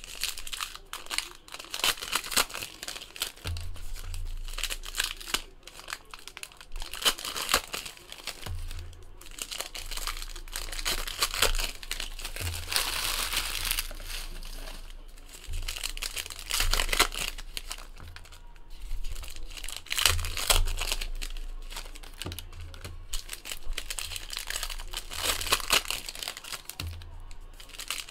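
Trading-card pack wrappers crinkling and tearing as packs are handled and opened, with now and then a dull bump of handling on the table.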